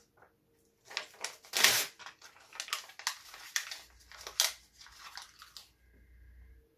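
Printed photo paper being torn and chewed: a run of sharp crinkles, rips and crunches that stops about a second before the end.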